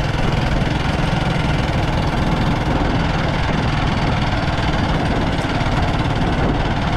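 A vehicle's engine running steadily, heard from on board, under a steady rushing noise.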